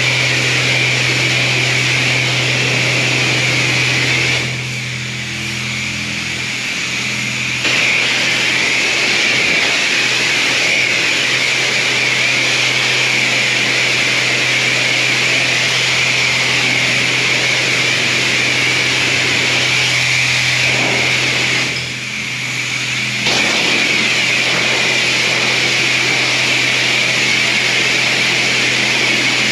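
High-pressure washer spraying steadily: a constant pump hum under a loud hiss of water. The spray eases off twice for a second or few, once about five seconds in and again about twenty-two seconds in, while the hum goes on.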